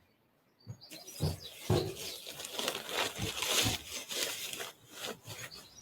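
Tent fabric rustling and crinkling as a tent pole is pushed through its sleeve, with a few soft knocks; it starts about a second in after a short quiet moment.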